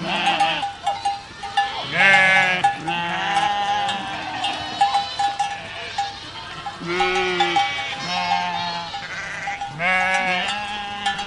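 Herd of goats bleating, many calls at different pitches overlapping one another, with a bell clinking again and again among them.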